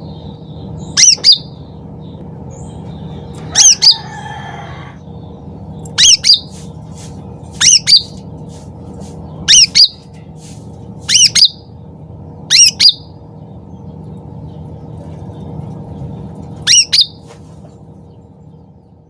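Cucak ranting (black-headed bulbul) calling loudly: eight short, sharp two-note calls, high in pitch, repeated every one and a half to two seconds with a longer pause before the last. A steady low hum runs underneath.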